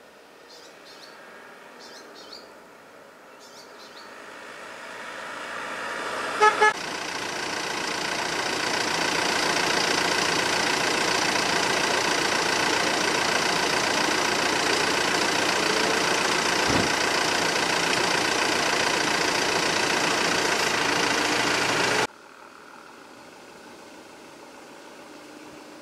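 Road vehicle running close by, its noise swelling over several seconds and then holding steady until it cuts off abruptly near the end. A horn toots twice in quick succession about six and a half seconds in. Faint bird chirps come at the start.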